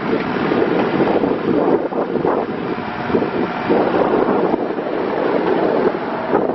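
Kubota U35-4 mini excavator running, a steady rough machine noise with uneven surges, mixed with wind buffeting the microphone.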